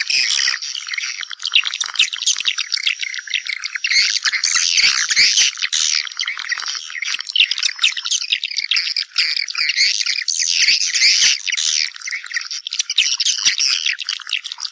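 Swiftlets calling in a dense, continuous chorus of rapid high chirps and twitters: the nesting call that swiftlets use to draw mates back to the nest.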